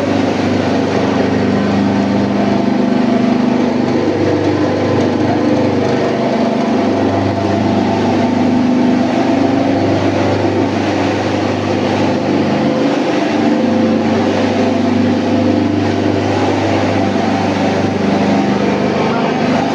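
Chili paste grinding machine running steadily, its motor giving a constant drone with a noisy grinding rush above it.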